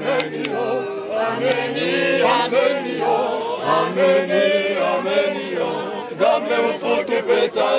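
A group of voices singing a hymn together, a sung refrain in several voices.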